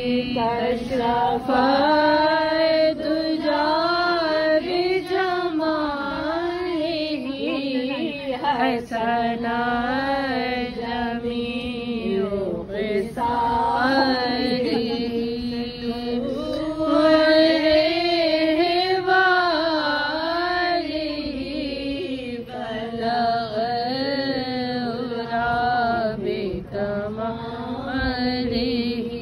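Devotional chanting of a milad recitation: a sung voice holding long notes that bend in slow melodic turns, with short pauses for breath.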